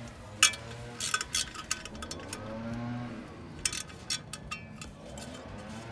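Irregular metallic clicks and clinks of a 3/8 socket wrench working the nuts that hold a brake caliper cover on. They come in small clusters, with a low held tone underneath.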